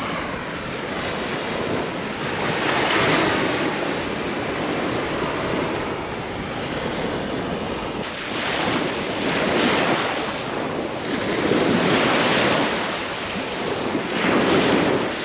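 Black Sea surf washing onto the shore, several waves breaking in turn with a rise and fall every few seconds, a choppy sea stirred up by wind. Wind buffets the microphone.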